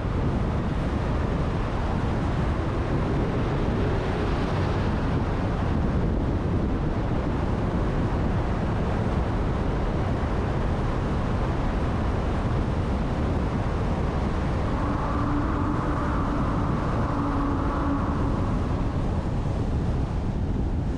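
Steady road and wind noise from a car driving. A faint hum joins it for a few seconds from about fifteen seconds in.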